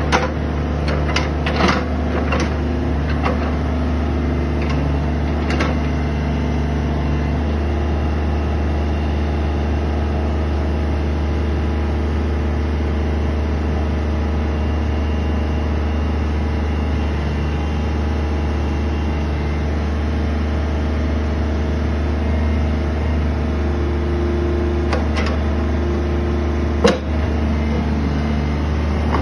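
Komatsu PC35 mini excavator's diesel engine running steadily with a deep hum as the boom and arm are worked, with a few sharp clicks and knocks in the first six seconds and one sharp knock near the end.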